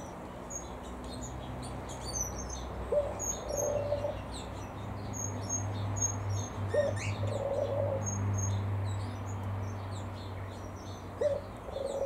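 Aviary birds calling: many short, high chirps from small birds, and a dove cooing three times, about four seconds apart, over a low steady hum.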